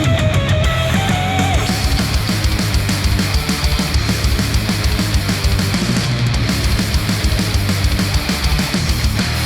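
Heavy, distorted rock music with rapid low drum hits, played back through headphones and picked up by microphones.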